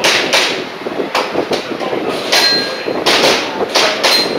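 Airsoft pistol firing a string of shots, roughly two a second, with pellets hitting steel targets that ring briefly.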